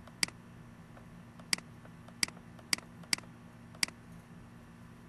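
Computer mouse clicking: six short, sharp clicks at uneven intervals over a faint steady hum.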